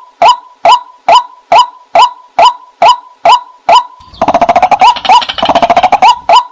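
White-breasted waterhen call used as a lure: short, loud 'kwak' notes repeated evenly about two a second, broken about four seconds in by a two-second run of rapid chattering calls before the steady repeats resume.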